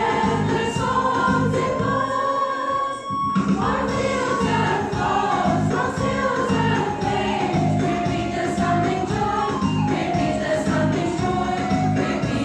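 Mixed church choir of women and men singing a hymn in parts over a rhythmic accompaniment with a steady beat. The beat drops out for about a second, about two seconds in, while the choir holds a note.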